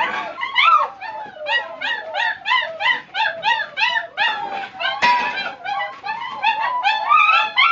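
A litter of five-week-old black German Shepherd puppies whining and yelping in chorus, a quick run of rising-and-falling cries about three a second: hungry puppies begging for their food.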